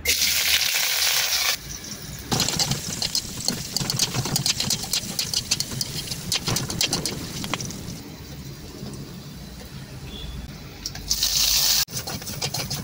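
Sliced onions and green chillies hit hot oil in a wok and sizzle loudly, then fry with a crackle while a spatula stirs and scrapes against the pan. A second loud burst of sizzling comes near the end.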